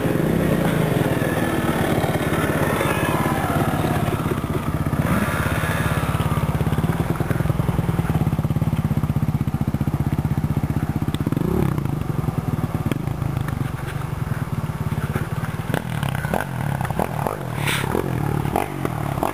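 Dirt bike engines running and revving hard as they climb a steep dirt hill, pitch rising and falling with the throttle, with a few sharp knocks and clatters near the end.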